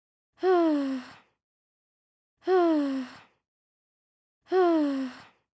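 A woman's voice gives a short, bashful sigh-like 'aww' that falls in pitch, played three times, two seconds apart. It is the same recording each time, used as the sound of a shy emoji.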